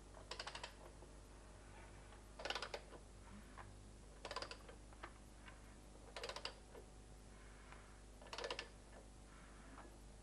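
Faint clicking in five short bursts of rapid clicks, about every two seconds, as a BMW M42 16-valve four-cylinder engine is turned over by hand with a tool on the crankshaft.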